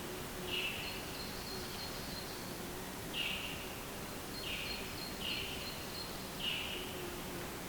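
Birds calling over a steady outdoor hiss: short calls repeat about five times, irregularly spaced, with a fainter, higher run of quick notes in between.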